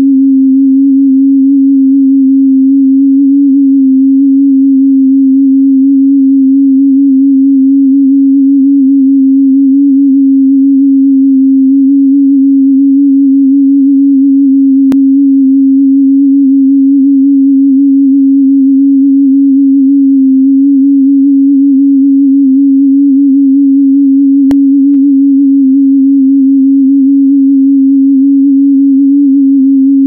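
Steady electronic pure tone at about middle C, the sonification of a LasR protein dimer's molecular-dynamics motion, with a slight flutter. Two faint clicks, one about halfway through and another some ten seconds later.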